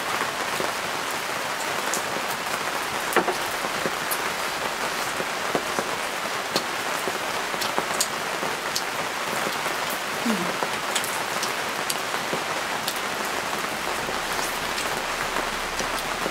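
Steady sizzling hiss with scattered sharp crackles from the charcoal barbecue grill as skewers cook.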